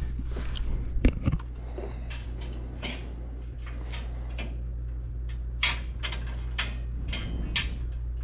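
A polished metal cover plate being handled and pressed against a steel traction bar: a heavy knock about a second in, then a run of short metal clicks and taps as it is shifted into place, over a steady low hum.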